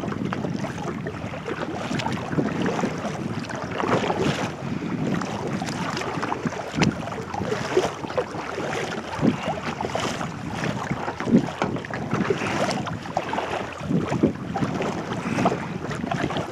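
Wind buffeting the microphone, with water splashing and lapping around a kayak in irregular bursts.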